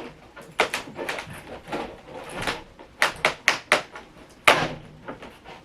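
Clear plastic blister packaging of a boxed figure being pried open and handled: irregular crackles and sharp clicks, with a louder snap about four and a half seconds in.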